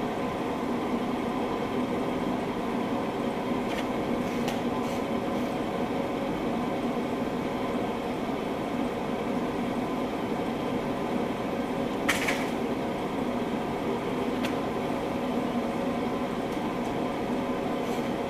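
A steady mechanical hum with several fixed tones runs throughout, broken by a few light metallic clicks and one sharper, ringing metal clink about twelve seconds in, as the hub bolts are handled.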